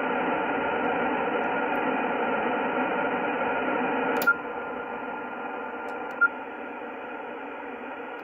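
HF amateur radio transceiver's speaker on sideband, giving out a steady static hiss with faint steady tones running through it: QRM across the 15 and 10 metre bands, which the owner guesses comes from an electrical device at a neighbour's property. A short click-beep about four seconds in as the band changes, after which the noise is a little lower, and another short beep around six seconds in.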